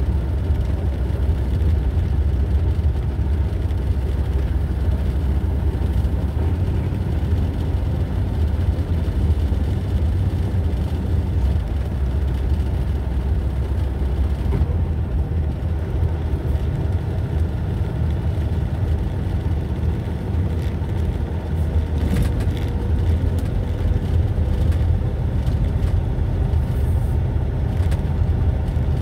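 Steady low engine and road rumble heard from inside a slowly moving vehicle.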